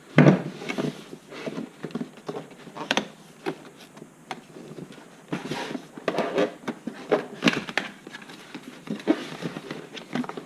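Cardboard packaging being opened and handled by hand: a sharp knock just after the start, then irregular rustling, crinkling, scraping and light tapping, busiest about halfway through.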